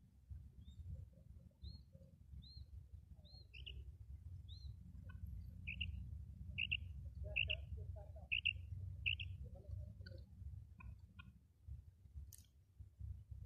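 Caged female quail calling: a series of short, high notes, about one a second, fainter at first and louder from about six seconds in. A steady low rumble lies under it.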